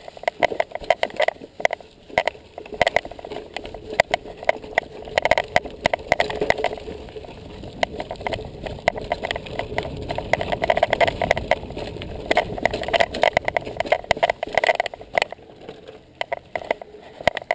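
Mountain bike rattling over a rough, rooty dirt trail: a dense, irregular run of clicks and knocks with tyre noise on the dirt underneath.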